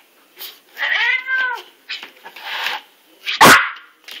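Domestic cat giving one drawn-out, arching warning yowl about a second in, followed by a breathy hiss; a sudden loud burst sounds near the end.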